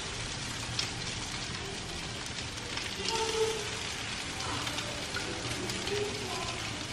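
Butter sizzling in a frying pan as egg-coated bread rolls fry: a steady hiss flecked with small crackles.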